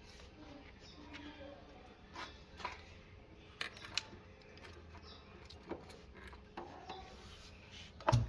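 Scattered light clicks and knocks of objects being handled, with one louder knock near the end.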